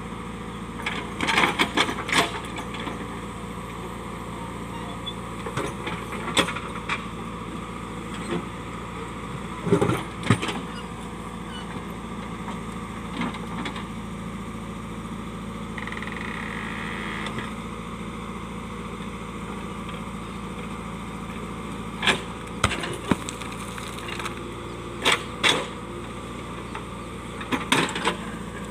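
JCB backhoe loader's diesel engine running steadily, with sharp irregular knocks and clanks as the digging bucket strikes and breaks rocks.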